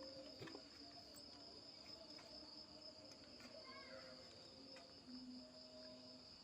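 Faint, steady high-pitched trill of crickets.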